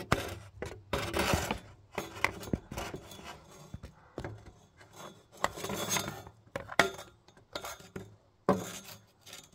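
Handling noise: irregular rubbing and scraping with a few light clicks.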